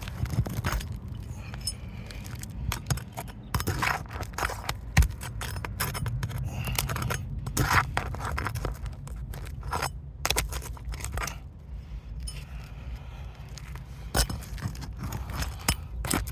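Irregular scraping and sharp clicks of nails being pried out from under brittle roof shingles, over a low steady rumble.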